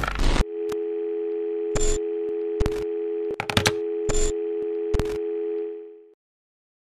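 Telephone dial tone, a steady two-note tone, with five or six sharp clicks over it; it fades out about six seconds in. Just before it starts, a short dense noisy burst cuts off about half a second in.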